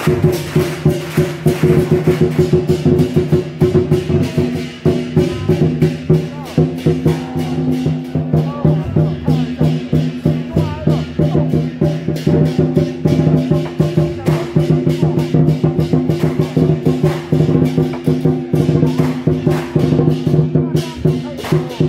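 Lion dance percussion: a large drum beaten with gongs and cymbals in a fast, dense rhythm, the cymbals and gongs ringing on throughout.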